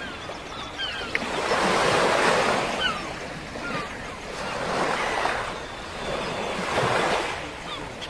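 Sea waves washing in three slow surges, with a few short, thin gull cries over them in the first half.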